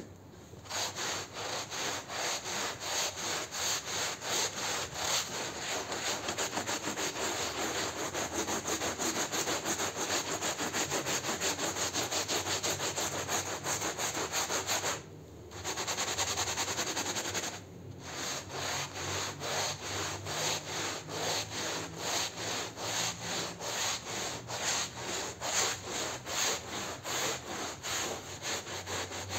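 Hand scrub brush scrubbing a wet, soapy shag rug in rapid back-and-forth strokes, bristles rasping through the pile. The scrubbing stops briefly twice about halfway through.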